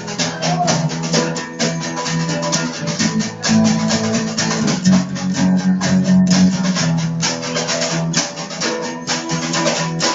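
Guitar music with a fast, even rhythm and sustained low notes.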